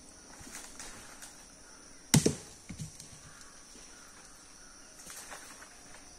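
A coconut dropped from the palm hits the ground: one loud heavy thud about two seconds in, then two lighter knocks as it bounces.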